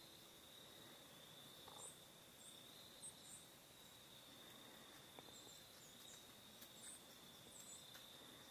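Near silence in woodland: a steady faint high-pitched whine, with faint very high chirps of small birds now and then.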